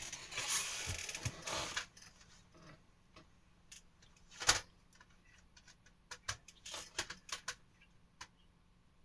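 Handling noise as albums are put away and the next one is fetched. There is a rustle close to the microphone for the first couple of seconds, then a sharp knock about four and a half seconds in, then a scatter of light clicks and taps.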